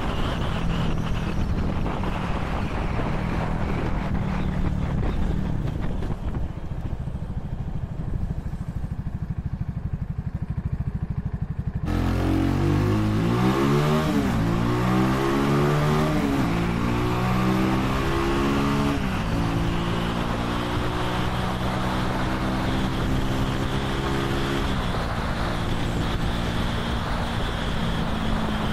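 Vitacci XMT 250 motorcycle's 250 cc single-cylinder engine running at road speed with wind rushing over the microphone, easing off for a few seconds. About halfway through it revs up with rising pitch, and the pitch drops back at each of several upshifts as the bike accelerates.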